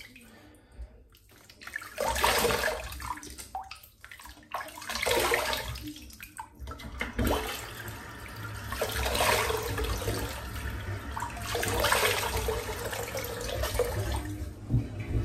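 Water from a running tap being splashed onto the face with cupped hands to rinse off after a shave. The splashing comes in about five surges, two to three seconds apart.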